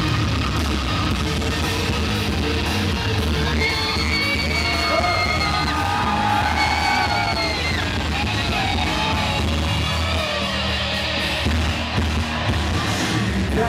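Live rock band playing on at full volume, with the crowd yelling and singing along over it.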